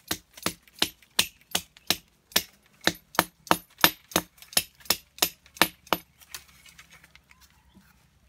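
Rapid, regular strikes of a tool on wood, about three a second, stopping about six seconds in.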